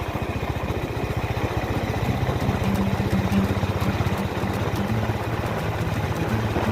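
Honda H'ness CB350's single-cylinder engine running steadily, a rapid even beat of exhaust pulses.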